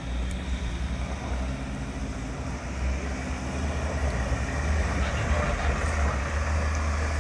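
Off-road vehicle's engine running as it drives on a muddy trail, a steady low rumble that grows a little louder about halfway through.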